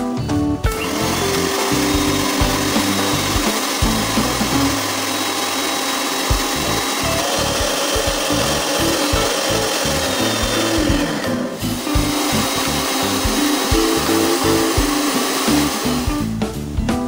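Electric stand mixer running, its beaters whipping cream in a plastic bowl, with a brief break about two-thirds of the way through. Background music plays under it.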